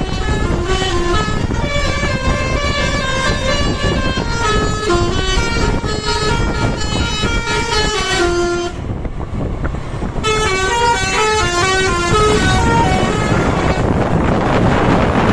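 Bus 'telolet' Basuri multi-tone horn playing a tune in quick stepped notes over the low rumble of bus engines. The tune breaks off for about a second and a half, then resumes. Near the end it gives way to a loud, broad rushing noise.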